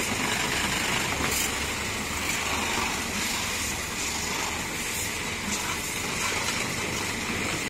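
Pressure washer spraying a high-pressure water jet onto a car's wheel and lower body: a steady hiss of spray.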